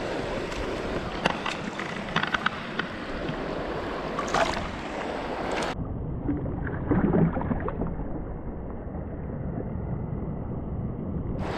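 Rushing river water, with small splashes and clicks in the first half. A little past halfway the sound turns abruptly muffled and dull, its high end cut off.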